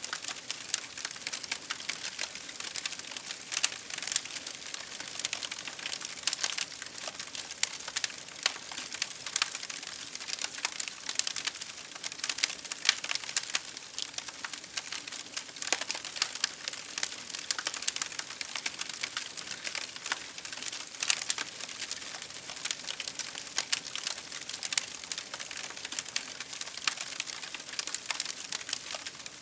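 Fire crackling: a dense, continuous stream of small pops and snaps, with a louder, sharper pop every few seconds.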